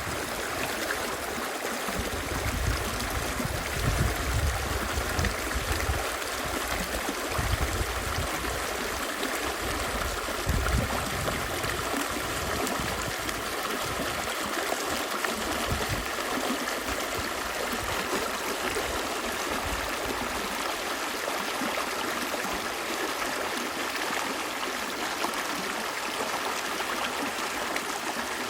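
Stream water running and trickling steadily, with uneven low rumbles during roughly the first twenty seconds.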